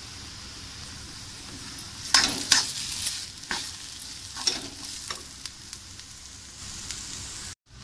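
Thick ground amla paste sizzling in hot oil in a kadai, stirred with a metal spatula that scrapes and knocks against the pan several times from about two seconds in. The sound cuts out briefly near the end.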